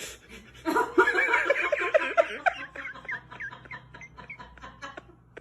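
High-pitched giggling laughter: a rapid run of short laughs, loudest in the first couple of seconds and growing fainter toward the end.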